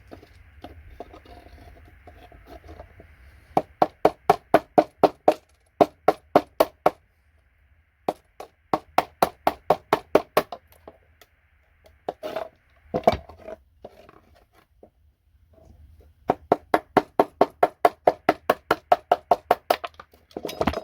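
Rapid, even knocking, about four strikes a second in four runs with short pauses between, as gold-pinned connectors are knocked loose from a computer circuit board. A faint steady hum lies underneath.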